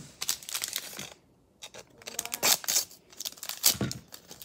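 Plastic wrapping crinkling and rustling by hand as a small packaged toy piece is unwrapped, in two stretches of crackle with a short pause about a second in.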